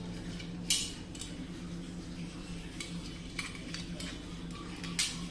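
Metal clinks and taps as the steel parts of a soldering iron stand are handled and fitted together: the sheet-metal base plate, the coiled wire spring holder and a small bolt. There are several sharp clicks, the loudest about a second in and near the end, over a steady low hum.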